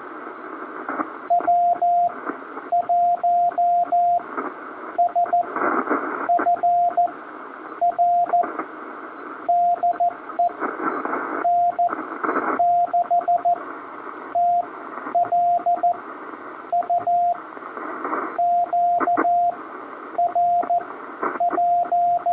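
Morse code (CW) from a ham transceiver's small speaker: a single steady-pitched tone keyed in dots and dashes, over band hiss and static that swells and fades.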